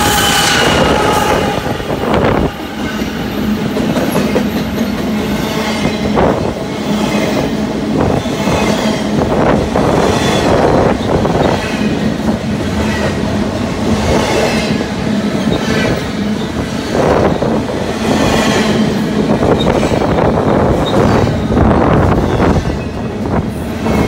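BNSF double-stack intermodal freight train passing close by at speed: the last diesel locomotive goes by at the start, then a steady rumble of container well cars with wheels clattering over the rail joints every second or two.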